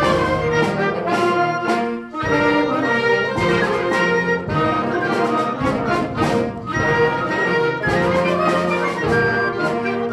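Concert band playing full ensemble, with brass chords to the fore. Sustained chords are marked by a few percussion strokes, with a brief drop in volume about two seconds in.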